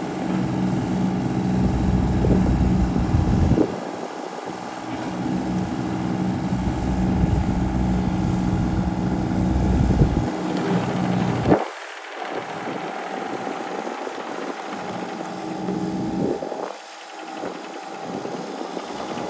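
Diesel engine of a Hyundai 25Z mini excavator running steadily. It grows louder and heavier twice in the first ten seconds, then settles to quieter running after about twelve seconds.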